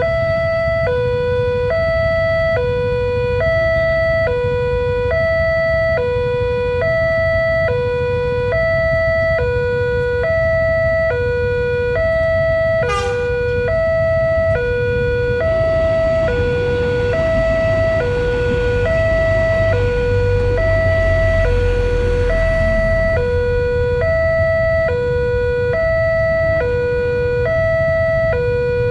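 Railway level-crossing warning bell sounding a two-tone electronic alarm that alternates steadily between a higher and a lower tone, about one pair a second. From about 15 to 23 seconds in, a passing train's rumble swells and fades under it, with a brief sharp sound just before.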